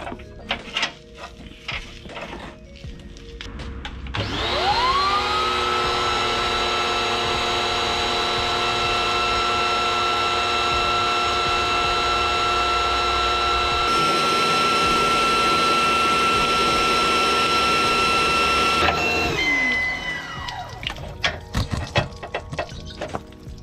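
Ozito electric pressure washer starting about four seconds in with a rising whine, then running steadily while it feeds a drain-cleaning jet hose pushed into the chassis rail. About five seconds before the end it winds down with a falling whine. Scattered clicks, knocks and drips come before it starts and after it stops.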